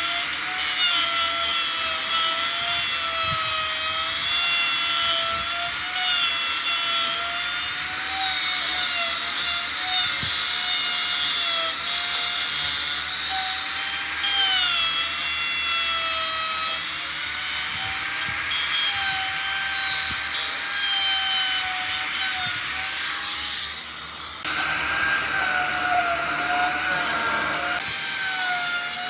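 Handheld electric power tool working wood, its motor whine wavering in pitch as it is pressed into the work and eased off, with a rasping noise of the cut over it.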